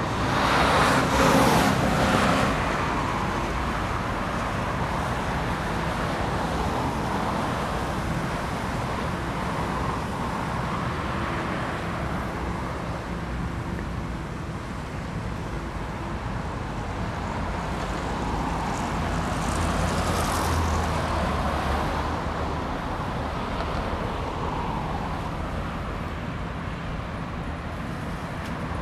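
Steady city street traffic. One vehicle passes close by near the start, and another passes with a low engine hum about two-thirds of the way through.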